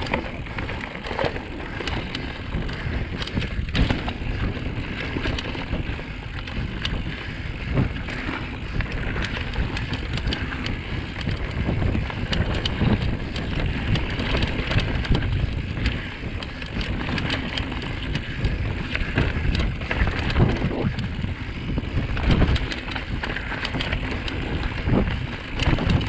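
Giant Trance full-suspension mountain bike riding fast down a dirt trail: a continuous rumble of knobby tyres on dirt and roots with frequent sharp knocks and rattles from the bike over the bumps.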